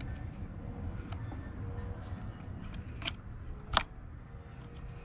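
Small clicks from handling the dismantled electric chainsaw's plastic housing and brush holder, a light one about three seconds in and a sharper, louder one shortly after, over a low steady rumble.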